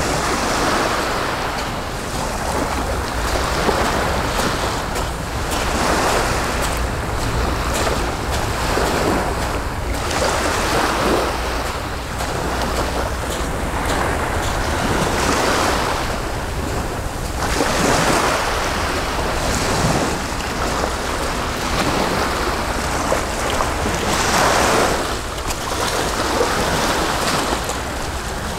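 Sea waves washing onto the shore, the surf swelling and falling every few seconds, with a steady low wind rumble on the microphone.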